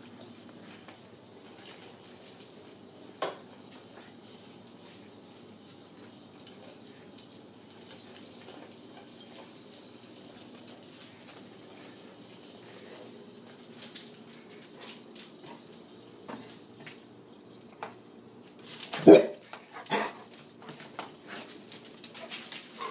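Black Labrador puppy playing with its toy: scattered clicks and knocks of paws and toy on the floor, with occasional small sounds from the dog, and one loud sharp sound about nineteen seconds in.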